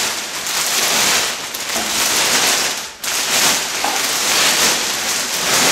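Thin plastic sheeting crinkling and rustling as it is pulled and smoothed by hand over a motorcycle fuel tank, with a brief lull about three seconds in.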